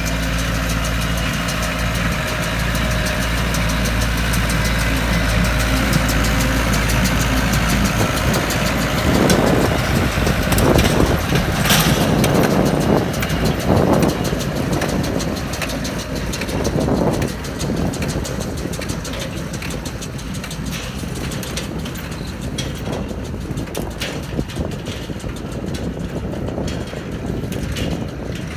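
Massey Ferguson 675 tractor's diesel engine running while pulling an International 440 small-square baler. The sound grows louder and rougher about a third of the way in, then eases off toward the end.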